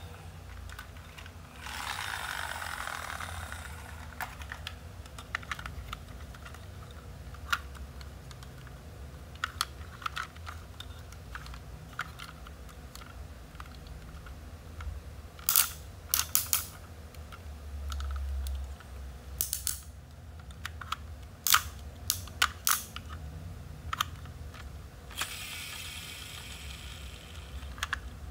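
Hands handling a plastic toy excavator: scattered sharp clicks and clacks of hard plastic parts, some in quick clusters, with a longer swishing rustle about two seconds in and another near the end.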